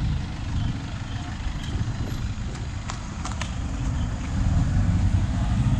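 Street traffic rumbling, with a few sharp clicks about three seconds in.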